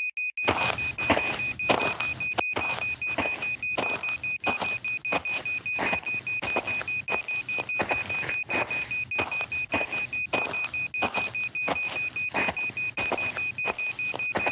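Cartoon footstep sound effects: an even run of steps, about three every two seconds, over a steady high-pitched tone that drops out briefly now and then.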